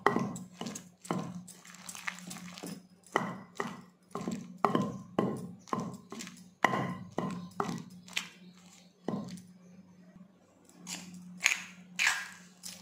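Wooden pestle pounding okra chutney in a stone mortar: dull, regular strikes about two a second that stop about nine seconds in. Near the end a steel spoon scrapes and clinks against the stone, over a steady low hum.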